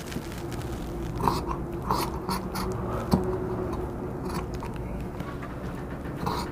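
Scissors snipping through shirt cloth along a chalk line: a series of short, crisp cuts at an uneven pace.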